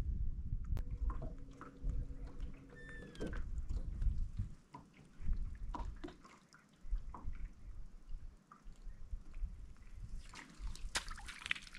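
Water lapping and dripping around a fishing boat, with scattered light clicks. A short steady hum sounds in the first few seconds, and a burst of louder splashing and clicks comes near the end.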